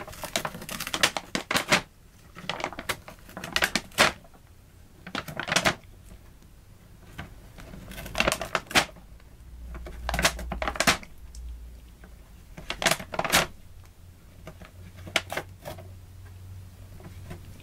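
Paper shopping bag crinkling and rustling as a cat pokes its head about inside it, in irregular bouts of crackly rustles with short pauses between.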